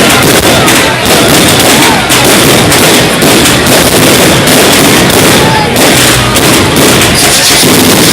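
Fireworks going off in a loud, dense, unbroken barrage of bangs and crackles.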